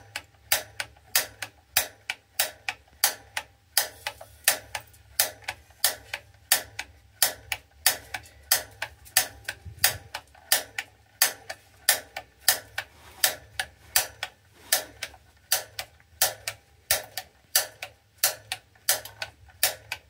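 Piezo igniter on a Rheem gas water heater's Honeywell gas control being pressed over and over, about two sharp clicks a second, as the pilot is being lit while the gas knob is held in.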